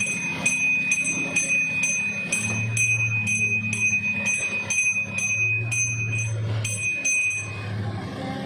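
Small brass hand-held puja bell rung steadily through an aarti, about two to three strokes a second, each stroke over one clear ringing tone that carries between strokes; the ringing stops shortly before the end.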